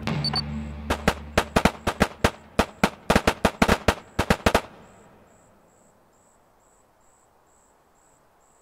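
A rapid volley of about twenty gunshots in three and a half seconds. Then crickets chirping steadily in the quiet.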